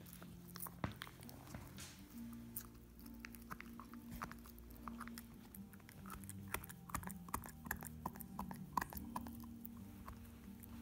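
Golden retriever puppy gnawing a cowhide chew: a run of irregular short clicks from teeth on the hide, coming thickest in the second half, over a faint steady low hum.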